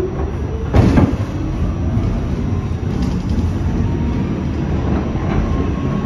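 R46 subway car running along the track. A rising motor whine fades out at the start, a loud clunk comes about a second in, and then there is a steady rumble with occasional clicks of the wheels over rail joints.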